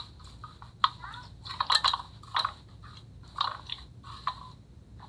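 Irregular short scraping and knocking sounds, about six in all, from a spoon and ingredients being handled in a cooking pot.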